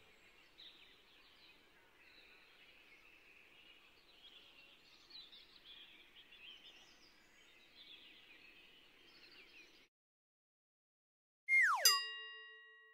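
Faint birdsong chirping for about ten seconds, then a short silence. Near the end comes a much louder sound effect: a quick falling swoosh that lands on a ringing chime and fades.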